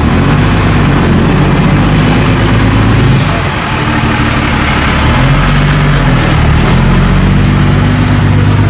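Diesel engine of an Isuzu Forward six-wheel dump truck running steadily, heard close by, with a brief rise and fall in engine note about six seconds in.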